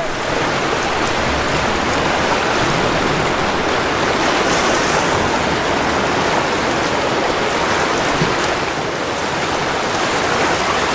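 Ocean surf washing against coastal rocks: a steady rushing noise that never breaks.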